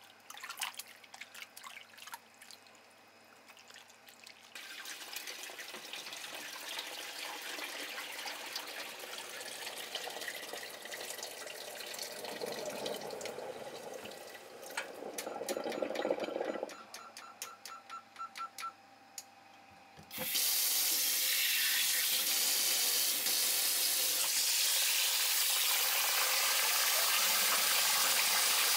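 Hands swishing and splashing in a bowl of water as salmon roe is washed, with scattered small splashes. About twenty seconds in, a tap turns on and runs steadily into a metal bowl, loud and continuous, as the roe is rinsed under it.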